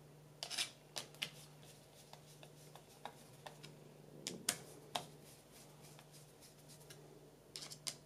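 Phillips screwdriver tightening screws into a 3D-printed plastic clamp: faint, irregular clicks and scrapes as the tip seats in the screw heads and turns, a small cluster near the start, more around the middle and again near the end.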